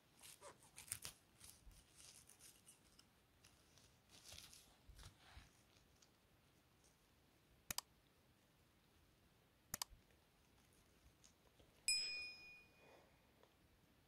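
Near silence broken by faint crackling and snapping, then two sharp clicks about two seconds apart, and a short high-pitched beep near the end.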